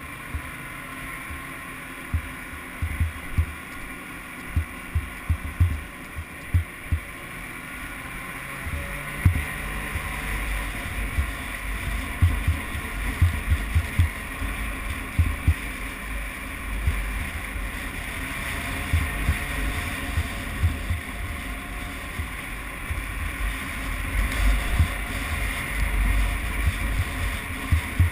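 Snowmobile engine running steadily while riding, with irregular low thumps of wind buffeting the microphone.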